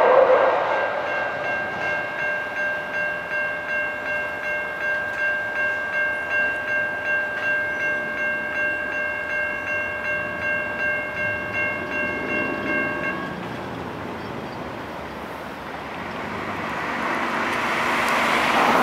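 The tail of a passing light rail train fades out in the first second. Then the crossing's new low-pitch Siemens E-Bell electronic bell rings steadily at about two strokes a second and cuts off about thirteen seconds in, once the crossing clears. Near the end a car approaches, growing louder.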